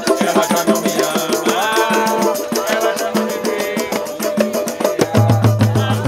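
Live samba: a cavaquinho and hand percussion such as a pandeiro playing a quick, dense rhythm, with voices singing over it. A deep bass note comes in near the end.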